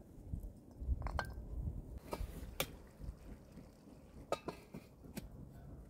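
Metal cookware being handled: a pot and its lid clink and tap about half a dozen times, one knock near the start ringing briefly, over a low background rumble.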